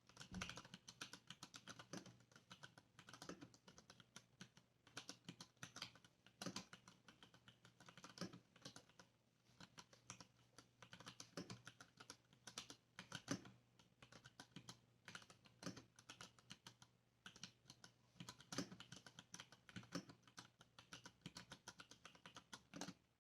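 Typing on a stock Varmilo mechanical keyboard with Cherry MX Brown switches: a quick, irregular run of faint keystroke clicks, with a few louder strokes here and there.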